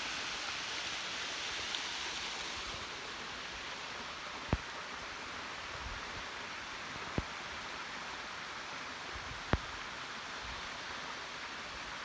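Steady rush of a waterfall's falling water, a little duller after about three seconds, with three short sharp clicks spread through the middle.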